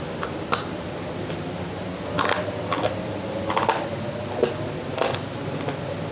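Dry clay crunching in a handful of short, irregular crackly bursts, over a steady background hiss that the uploader calls a sound disturbance from the new mic.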